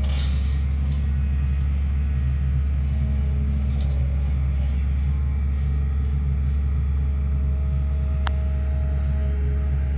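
SANY excavator's diesel engine running steadily with a deep, even rumble, with one brief click about eight seconds in.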